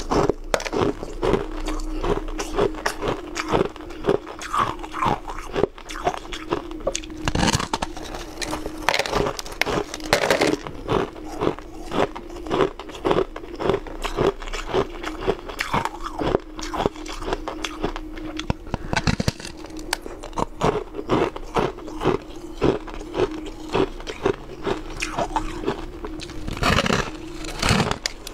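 A frosty slab of pink-coloured ice being bitten and chewed: a fast, irregular run of crisp crunches over a steady hum.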